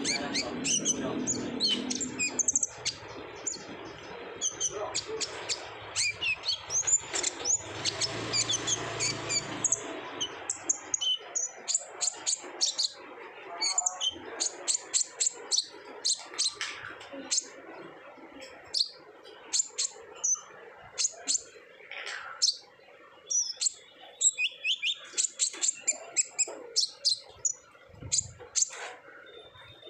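Kolibri ninja sunbird singing hard in a continuous run of rapid, short, high chirps and trills. A low background hum sits under the song during the first few seconds.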